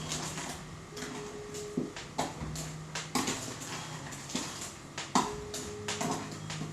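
A utensil knocking and scraping against a mixing bowl as chocolate cake batter is mixed, in irregular knocks about one to two a second.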